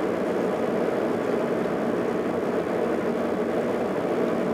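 Steady engine and road noise inside a car cruising along a road, with the engine sound quiet.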